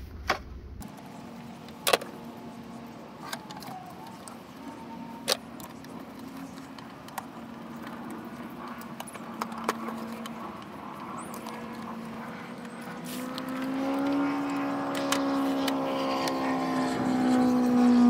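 Scattered sharp metal clicks from a screwdriver and wire terminals being worked on a fuse and relay box. Under them runs a steady engine drone that swells much louder over the last few seconds.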